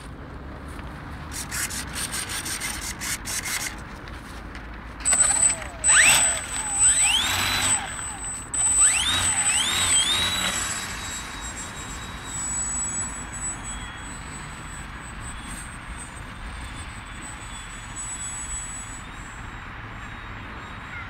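Electric RC plane's small brushless outrunner motor and propeller being throttled up in several quick bursts, each a rising whine over a rush of prop air. It then settles into a steady thin high-pitched whine. Before that there is a short patch of light rapid clicking and rubbing.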